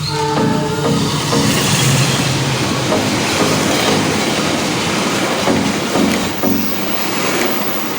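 Passenger train passing at speed, its wheels clattering over the rails in a loud rushing noise that swells about a second in and eases off near the end.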